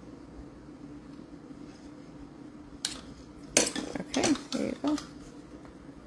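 A metal spoon scraping and clinking against a ceramic bowl in a short run of strokes about three and a half seconds in, scooping grated carrot into a plastic measuring cup. Before that there is only a faint steady hum.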